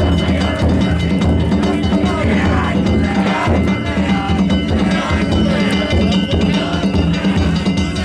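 Danjiri float music: a taiko drum beaten continuously with metal hand gongs (kane) clanging over it, loud and without a break.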